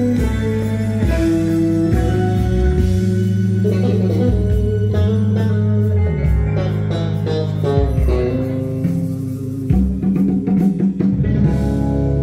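Recorded guitar music playing through Lansche hi-fi loudspeakers with plasma tweeters, heard in the room, with sustained bass notes under plucked guitar lines.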